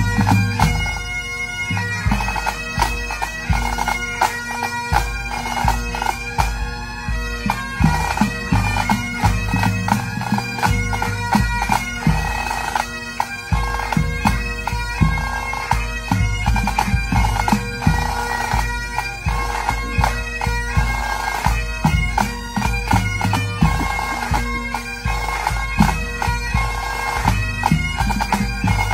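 Pipe band playing: Highland bagpipes sounding a melody over their steady drones, with snare drums and a bass drum beating underneath.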